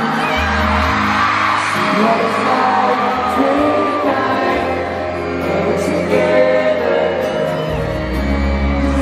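A live stadium concert heard over the PA: male vocals singing a slow pop ballad over a band with sustained bass notes, with fans screaming and singing along.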